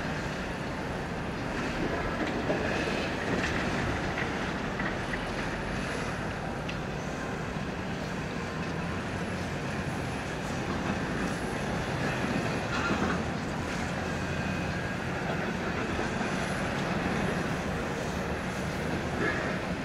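Heavy diesel engines running steadily: the CAT 336F excavator working its hydraulics as it digs, and the Scania R730 truck idling. Scattered clatter and scraping of broken concrete rubble comes from the bucket in the pile.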